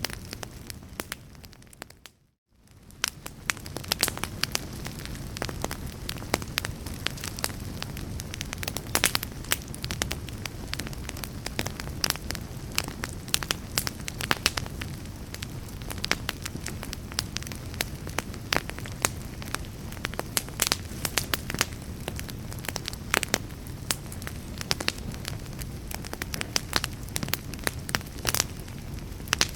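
Wood fire burning in a fireplace: a steady low rumble of flames under many sharp crackles and pops. About two seconds in, the sound fades almost to silence for a moment, then fades back up.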